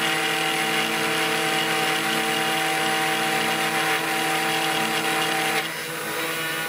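Mini CNC spindle milling a slot in aluminium plate with a small end mill held in a new 4 mm collet: a steady spindle whine under the cutting noise, the new collet working fine. About five and a half seconds in, the cutting noise stops as the bit lifts clear, and the spindle runs on more quietly.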